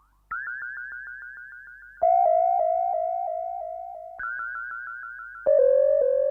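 Synthesized electronic blip effect: quick repeated pitched pulses, each sliding slightly upward. The pattern switches about every two seconds between a higher, faster run and a lower, slower, louder one.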